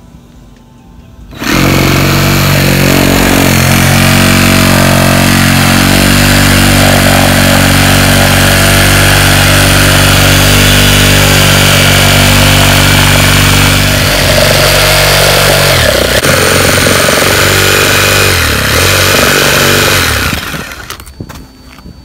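Reciprocating saw running and cutting through asphalt roof shingles and the roof decking beneath to open a vent hole. It starts about a second and a half in and stops near the end, its pitch dipping and wavering in the last few seconds.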